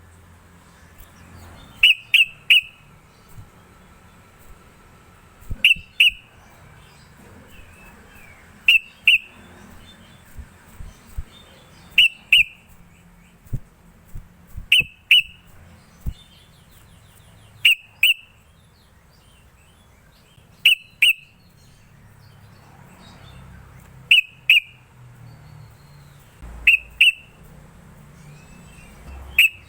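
Sooty-headed bulbul (trucukan) singing: short, loud phrases of two or three quick whistled notes, repeated about every three seconds.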